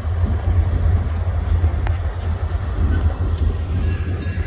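Three EMD GP20 diesel locomotives, each with a turbocharged 16-cylinder engine, approach at the head of a freight train with a steady low rumble.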